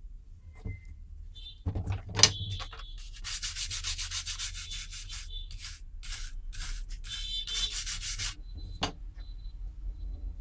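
A stiff brush scrubbing the solder side of an induction cooker's circuit board in quick back-and-forth strokes for about five seconds, cleaning it. A sharp knock comes about two seconds in, and a lighter one just after the scrubbing stops.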